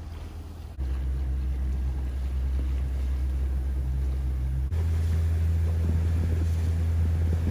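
A motorboat engine runs with a steady low rumble. It gets louder about a second in and shifts to a slightly different low pitch a little past halfway.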